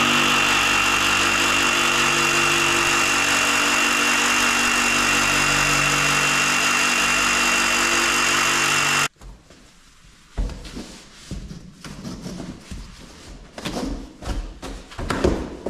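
DeWalt jigsaw running steadily as its blade cuts through a foam interlocking floor mat, stopping abruptly about nine seconds in. Then come scattered soft knocks and thumps as the mats are pressed into place on the floor.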